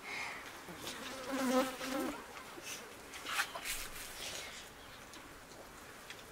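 An insect buzzing close by, loudest about a second and a half in, followed by a couple of sharp light clicks.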